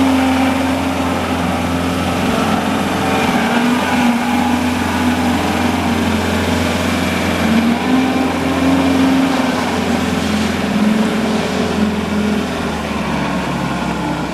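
John Deere 333E tracked skid steer's diesel engine running steadily at working speed, its pitch wavering slightly up and down, easing off a little near the end.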